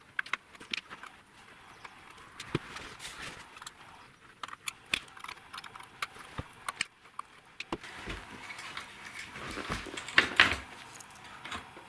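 Small metallic clicks and taps of a hand tool and small parts being handled while undoing the M3 screws that hold the wooden deck on an RC truck trailer. The clicks come irregularly, with a busier, louder flurry of clicks and rustling near the end.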